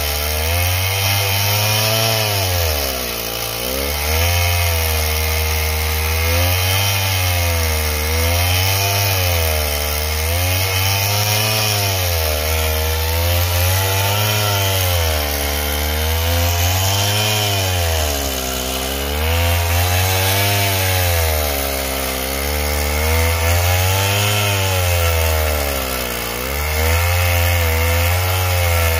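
Petrol chainsaw cutting through a thick felled tree trunk, run hard with its engine pitch dipping and rising again every two seconds or so as it works through the cut.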